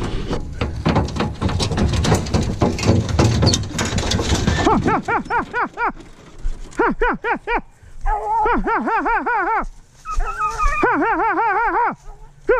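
A few seconds of clattering and rustling, then a pack of beagle hounds yelping in quick high-pitched strings of short cries, several dogs overlapping near the end. The hounds have just been turned loose from the truck to hunt deer.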